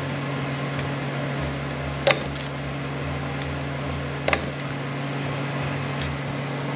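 Several sharp metallic clicks, the loudest about two seconds and about four seconds in, from a snap ring and snap-ring pliers being worked onto a T5 transmission shaft while the ring catches on a ledge. A steady low hum runs underneath.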